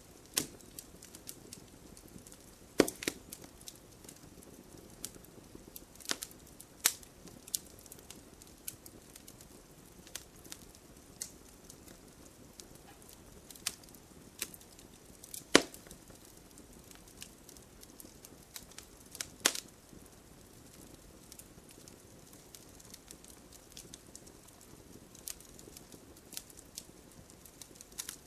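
Campfire burning: a steady low rush under continuous small crackles, with a handful of sharp, loud wood pops scattered every few seconds.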